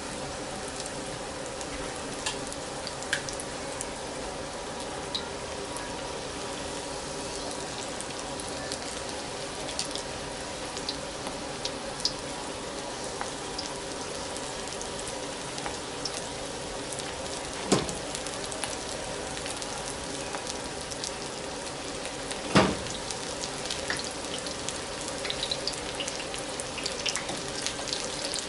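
Egg rolls deep-frying in hot oil in a pan: a steady sizzle with scattered crackles and pops. Twice, past the middle, comes a sharp knock, typical of metal tongs striking the pan as the egg rolls are turned.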